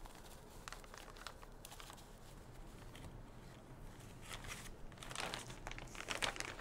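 Clear plastic zip-top bag crinkling as it is handled, faint at first and louder over the last two seconds or so.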